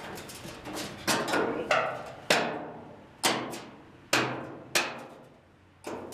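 A fist pounding on a new steel one-piece floor pan to force it down into place in a 1967 Ford Mustang convertible body: about seven sharp knocks, roughly one a second, each with a short ring.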